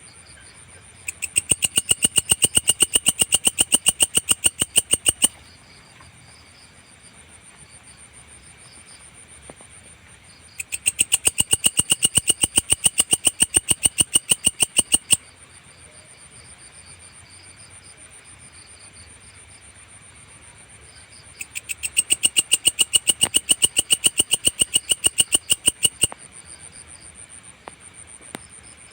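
Singing grasshopper calling in three bouts of rapid, even clicking pulses, about eight a second, each bout lasting four to five seconds, with pauses of about five seconds between them. A steady high-pitched tone continues underneath.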